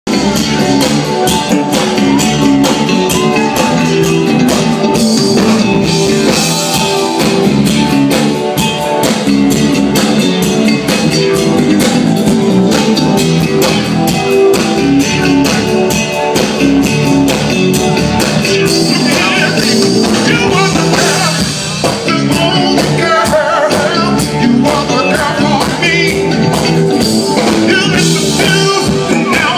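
Live soul band playing an up-tempo number with drum kit, bass and electric guitar. A man's lead vocal comes in during the second half.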